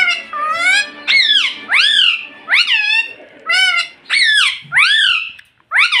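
Rose-ringed parakeet calling over and over: short shrill calls that rise and then fall in pitch, about two a second.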